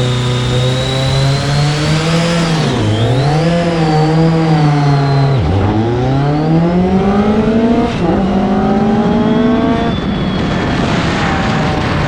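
2006 BMW K1200GT's inline-four through a Delkevic aftermarket exhaust, accelerating hard from a 4,000 rpm launch: the engine note climbs in each gear and drops sharply at three upshifts. Near the end the rider backs off the throttle, the engine note falls and wind noise takes over.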